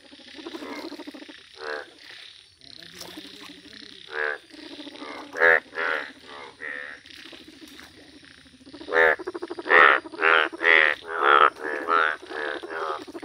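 A breeding chorus of Indian bullfrogs, the males in bright yellow mating colour, calling in a flooded puddle. A steady background of croaks gives way, about nine seconds in, to a run of loud pulsing croaks, about two a second.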